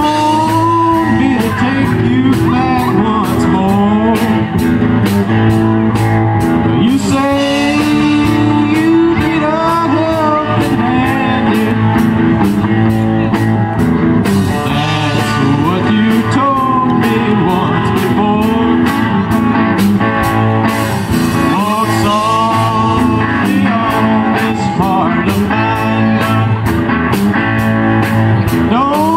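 Live rock band playing a bluesy song: a male lead vocal over electric guitars, with a drum kit keeping a steady beat on the cymbals.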